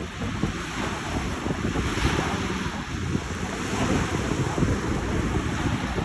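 Small waves breaking and washing up a sandy beach in a steady hiss of surf, with wind buffeting the microphone.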